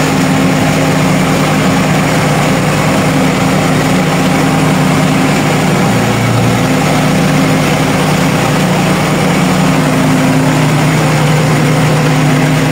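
Farm tractor's diesel engine running at a steady speed, heard from inside its cab as a constant hum.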